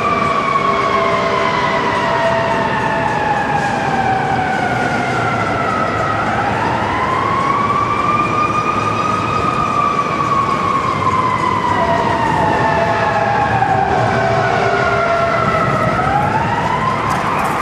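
Emergency vehicle siren in a slow wail, its pitch sliding down over several seconds, rising again, falling again, and starting to climb near the end, over a steady background of traffic noise.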